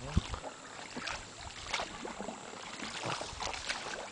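Double-bladed kayak paddles dipping into calm water, with irregular splashes and drips from the blades, and a low thump just after the start.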